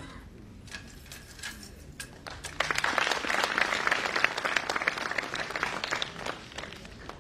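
Audience applauding: a few scattered claps at first, then steady applause from about two and a half seconds in that thins out and dies away about a second before the end.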